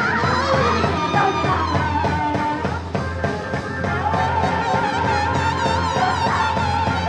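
Improvised live band music: a steady bass line and percussion under a high, wavering line with wide vibrato that slides down in pitch over the first couple of seconds, then holds around one pitch.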